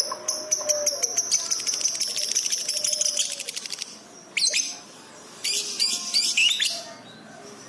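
Lovebird singing: a long, rapid rattling trill of high notes lasting about three and a half seconds, followed by a few short, shrill calls.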